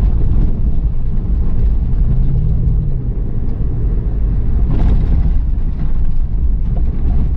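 Toyota FJ Cruiser driving fast over a dirt road: a steady low rumble of engine and tyres on the rough surface, with a short burst of harsher noise about five seconds in.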